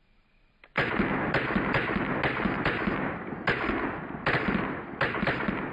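Rapid pistol fire from two CZ 82 pistols in 9x18mm Makarov, fired together, one in each hand. The shots begin about a second in and come about two a second, each trailing off in a short echo.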